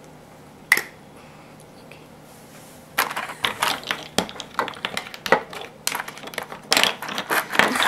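Makeup items being rummaged through and handled: a single click about a second in, then from about three seconds on a quick run of clicks and rattles of small makeup cases and brushes knocking together.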